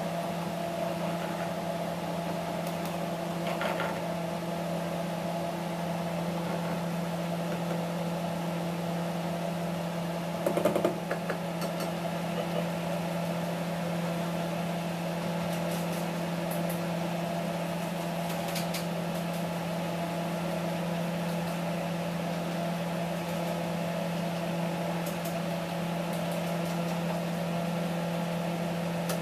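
Steady mechanical hum of a small electric motor, such as a kitchen fan, with a brief knock about ten and a half seconds in.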